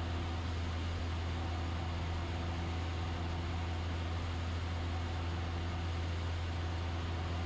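Cessna 172SP's four-cylinder Lycoming engine and propeller droning steadily in flight, heard inside the cabin: an even low hum with fainter steady tones above it and a hiss of air noise.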